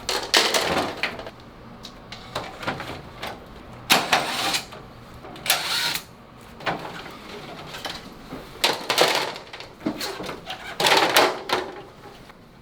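Air conditioner being taken apart by hand: irregular clicks, knocks and rustling of plastic panels and parts being handled and pulled off.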